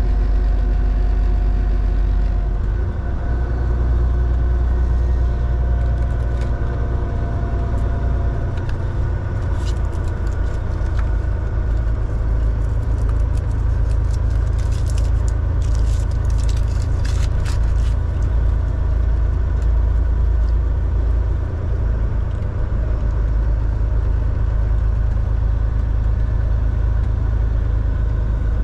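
Semi truck's diesel engine and road noise while driving: a steady low rumble. A run of light clicks and rattles comes and goes in the middle.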